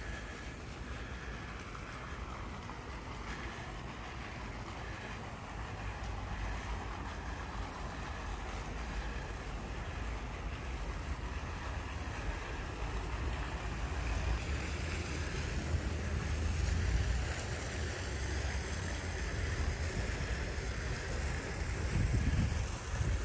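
Wind rumbling on the microphone over a steady wash of splashing water from small fountain jets in a pond, the water growing louder in the second half.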